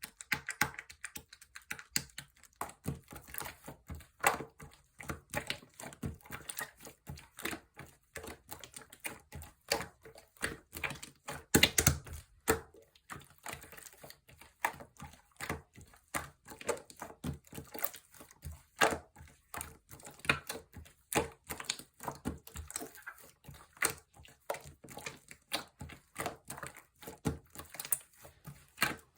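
Slime being squished and poked by hand, making a fast, irregular run of small clicks and pops, with a louder cluster about twelve seconds in.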